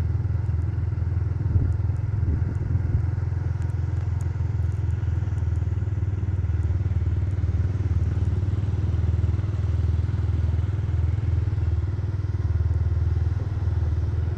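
Motorcycle engine running steadily while riding along a rough gravel construction road, a constant low drone with road and wind noise over it.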